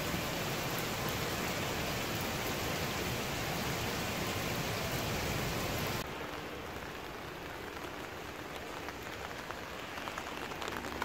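Heavy rain pouring down onto pavement with a steady hiss. About six seconds in the sound cuts abruptly to a softer, quieter rain.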